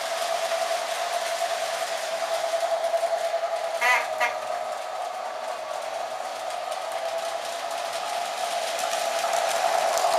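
Toy electric train running on a layout with tubular track: a steady motor whir and wheel hum, with two short horn toots about four seconds in.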